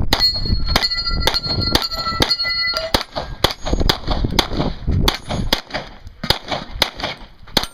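A rapid string of pistol shots, about two a second, fired at steel targets. Hit steel plates ring with a pitched clang, most clearly in the first three seconds.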